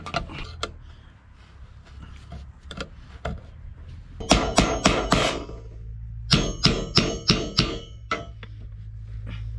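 Claw hammer tapping an aluminum wiggle-wire channel down over a carriage bolt: lighter clicks, then two quick runs of about six sharp metallic taps that ring after each strike, the first about four seconds in and the second about two seconds later.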